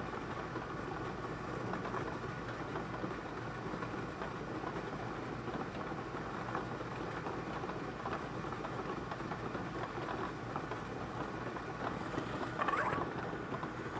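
Air-mix bingo ball blower running steadily, with the plastic balls clicking and rattling as they tumble in the air chamber.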